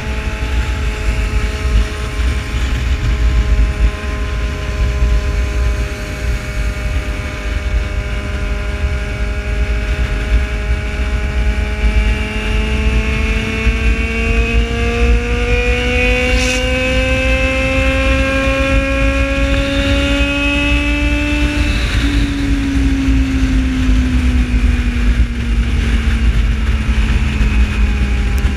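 Yamaha XJ6's inline-four engine running at highway speed under heavy wind rumble on the microphone. Its pitch climbs slowly as the bike speeds up, breaks off briefly about three-quarters of the way through, then sinks gradually as it eases off.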